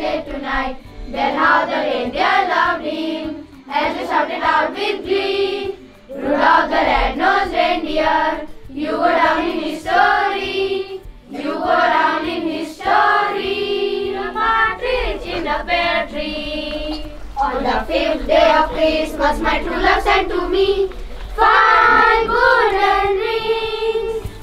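A group of schoolchildren singing together in chorus, in short phrases with brief breaks between them.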